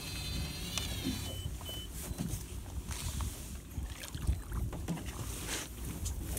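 Electric fishing reel winding in with a high whine that rises briefly and cuts off about a second in, followed by two short beeps. Then scattered splashes and clicks as the rig and chum basket come up out of the water, over a steady low rumble.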